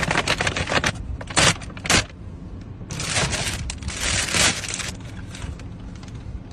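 Paper takeout bag and thin plastic bag rustling and crinkling as hands open them. Sharp crackles come in the first two seconds and a longer crinkle from about three to four and a half seconds in, over a steady low hum.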